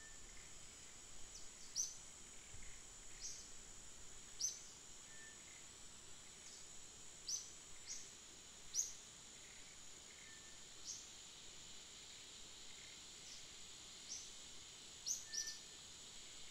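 Faint outdoor ambience: a steady high-pitched insect drone, with a dozen or so short high chirps scattered through it. The loudest chirp comes about nine seconds in.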